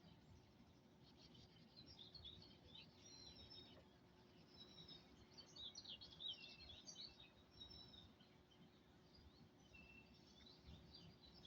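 Faint songbirds singing and chirping, several quick warbling phrases overlapping, busiest in the middle, over a low steady outdoor background hum.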